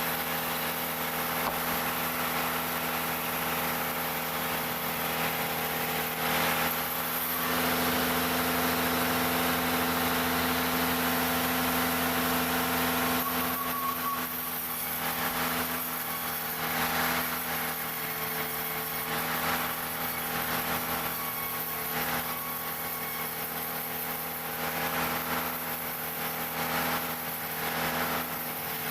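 Engine of a wood-cutting machine running steadily at constant speed, louder for about six seconds partway through and a little uneven after that.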